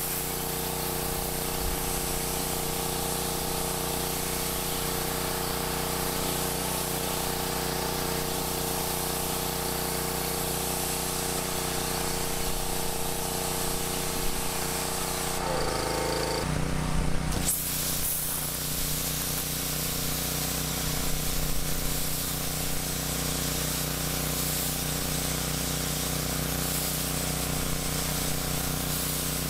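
Pressure washer running steadily, its water jets hissing out of a wheeled water broom spraying the underside of a truck and then a concrete driveway. The sound breaks briefly and changes about halfway through.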